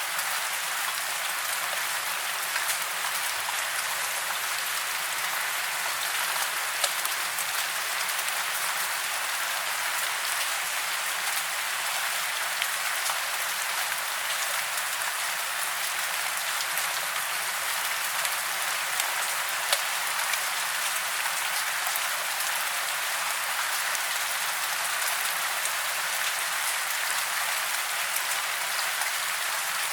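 Steady rain: a dense, even hiss with scattered sharper drop ticks, a few a little louder than the rest.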